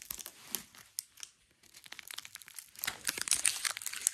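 Nutella B-ready packaging being opened by hand: crinkling and tearing, sparse at first, then denser and louder from about three seconds in.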